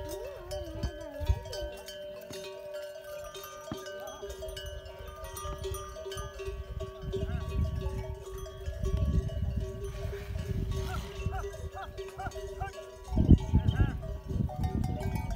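Bells on a herd of dromedary camels ring steadily. Low rumbling noise builds in the second half and is loudest about thirteen seconds in.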